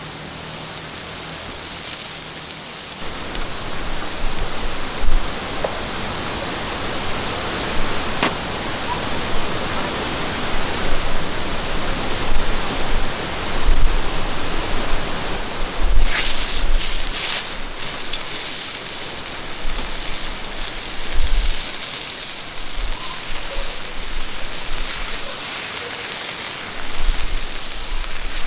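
Food sizzling and crackling in a frying pan, a dense hiss with fine crackles. A steady high-pitched hiss runs through the first half before the crackling takes over about halfway in, with a few low bumps of the pan being handled.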